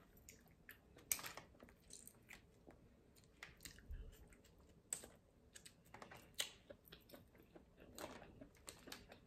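Close-miked chewing of steamed blue crab meat, with scattered small clicks and crackles as crab shell is picked apart by hand.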